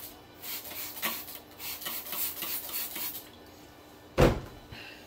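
Red Wing Iron Ranger leather boot being dunked and sloshed in water in a stainless steel sink, with repeated splashing for the first three seconds. A single loud thump comes about four seconds in.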